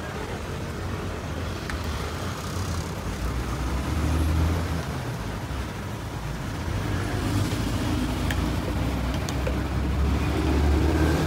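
Street traffic: a low rumble of motor vehicle engines passing, swelling about four seconds in and again near the end, with a few light clicks.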